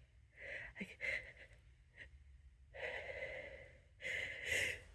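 Sharp, breathy inhalations as a sneeze builds up, about four short gasping breaths with pauses between them.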